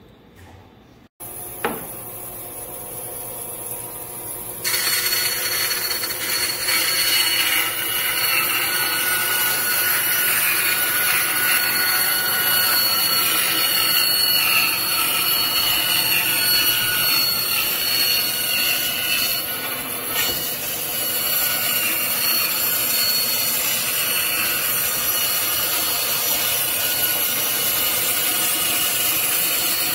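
Power saw cutting through wood, running steadily after starting about a second in and getting louder a few seconds later, with a brief dip about two-thirds of the way through.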